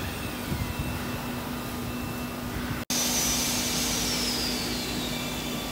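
Spiral wire fan guard making machine running: a steady hiss and low hum, with a high whine that slides down in pitch over about two seconds. The sound drops out for an instant near the middle.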